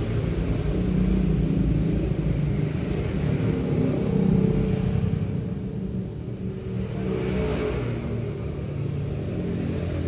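Low rumble of a vehicle engine running, swelling a little about four seconds in.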